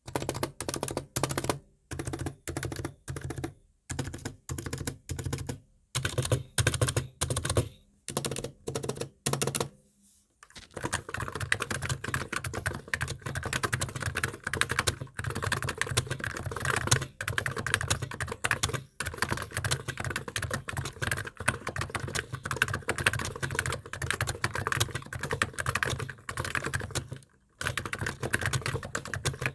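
Typing on an ABKO K935P electro-capacitive keyboard with 50 g switches, not yet lubricated. For about the first ten seconds the keys are struck in short quick runs with brief pauses, then the typing runs on fast and continuous, with one short break near the end.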